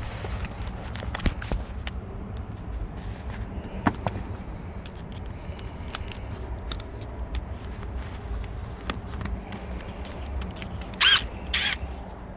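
Tools and fasteners being handled while refitting a steering column cover: scattered clicks and scrapes, then two short, loud zipping bursts from a tool near the end.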